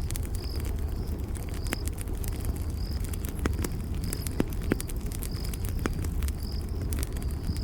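Campfire burning with a low steady rumble and scattered sharp crackles and pops, while a cricket chirps in short high pulses about once a second.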